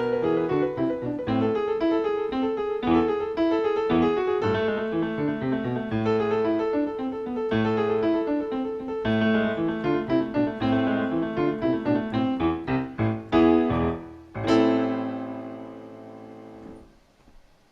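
Solo piano playing a slow piece of chords and melody, closing on a final chord about 14 seconds in that rings out and fades before being cut off.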